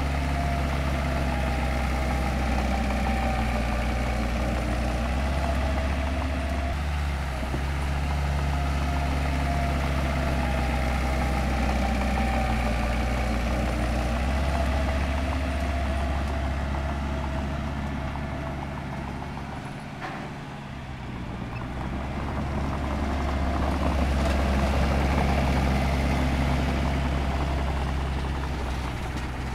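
Heavy diesel engine of road-building machinery running steadily, its pitch shifting a little now and then. The sound dips briefly about two-thirds of the way through, then swells again.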